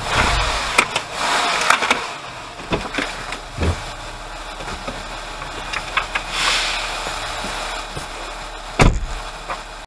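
A car's idling engine switches off right at the start. Then comes garage-bay clatter: clicks, knocks and bursts of hiss, with one loud thump near the end.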